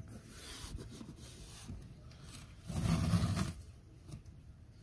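Painter's tape being pulled off its roll with a zipper-like rasp and rubbed down by hand onto a vinyl seat. A louder rasping burst comes about three seconds in.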